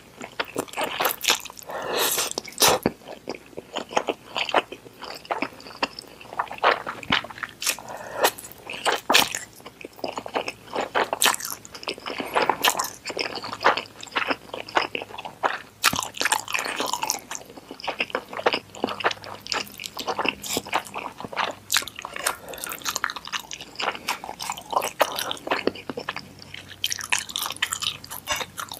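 Close-miked mouth sounds of eating saucy instant ramen and udon noodles with melted cheese: wet chewing and noodle slurping, with many quick, irregular clicks and smacks.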